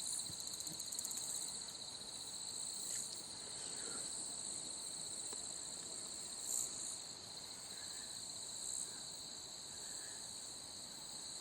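Steady, high-pitched insect chorus, an unbroken shrill drone with a few faint chirps over it.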